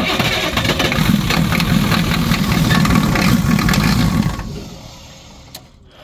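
International 7.3 IDI V8 diesel cranking on its starter in a cold start, glow plugs pre-heated for ten seconds through a bypass of the glow plug controller. The cranking runs steadily for about four seconds, then dies away.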